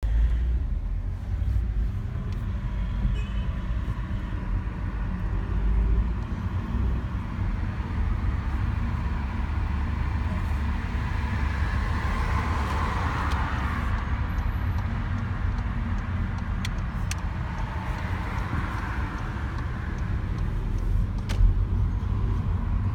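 Volkswagen Polo 1.2 TSI's turbocharged four-cylinder petrol engine running with a steady low rumble, carrying a strange recurring "vik vik" noise whose source the owner cannot place. A hiss swells and fades about halfway through and again later, with a few sharp clicks.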